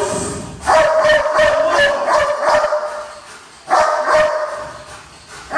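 A police dog's excited, high-pitched yelping barks during bite-sleeve work, coming in bouts that start about a second in and again near four seconds in, each trailing off.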